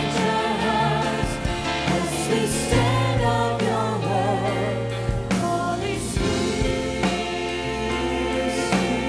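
Live worship music: a woman's lead vocal sung with vibrato, joined by backing singers, over keyboard piano chords and acoustic guitar.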